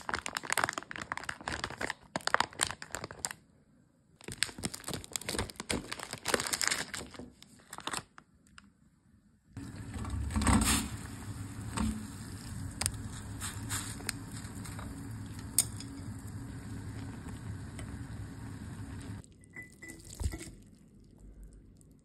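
Plastic instant-noodle packet (Samyang Buldak Light) crinkling and tearing open in two spells. After a short pause comes a long steady rushing noise while the noodle block cooks in a pot of water, then a few brief clatters near the end.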